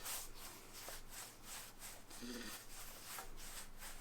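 Hands rolling baguette dough back and forth on a work surface: faint, soft, repeated rubbing strokes, a few each second.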